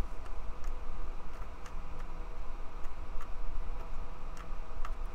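Soldering iron working at circuit-board pads: faint, irregular ticks over a steady low hum.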